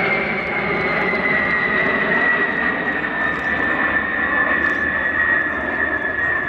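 Boeing B-52 Stratofortress bomber's eight turbofan engines running loud as it passes and flies away. Over the engine roar, a high whine falls slowly in pitch.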